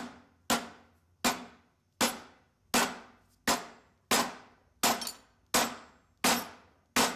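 Dead blow hammer pounding on the end of an old Sears contractor saw's rusted, seized arbor shaft, about ten steady blows roughly one every three-quarters of a second. Each blow is a sharp knock that rings out briefly. The blows are driving the shaft to knock its bearings loose.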